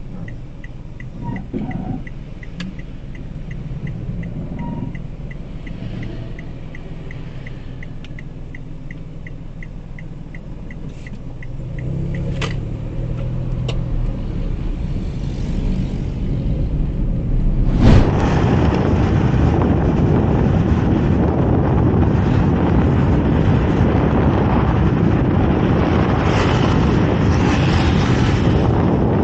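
Inside a small Mitsubishi hatchback driving in traffic: a steady engine and road rumble with a light regular ticking, about three ticks a second, for the first twelve seconds. About eighteen seconds in, the sound suddenly turns into a much louder, steady rush of wind and road noise.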